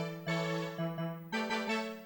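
Kawai FS640 arranger keyboard playing a short phrase of chords and single notes in a piano-like voice, each note struck sharply and then fading, about six notes in two seconds.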